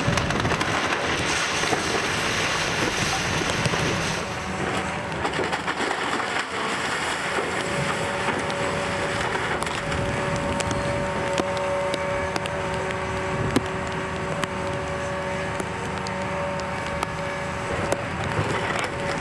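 Heavy demolition machinery running steadily while wooden ride structure is broken up, with scattered cracks of splintering wood. A steady whine joins about seven seconds in.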